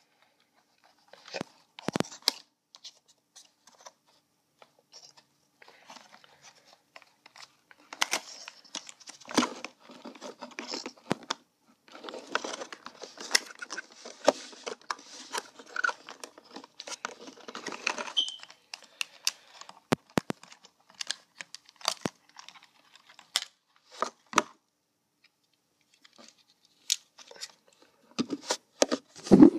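A diecast model car being unboxed by hand: packaging rustling and crinkling, with tearing and scattered clicks and knocks. The rustling is busiest from about twelve to eighteen seconds in.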